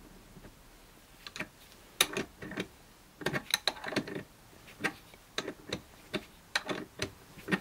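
Irregular metallic clicks and clinks from the chrome multi-socket head of a 48-in-1 socket wrench being turned over and handled in the hands. The clicks start about a second in and come in small clusters.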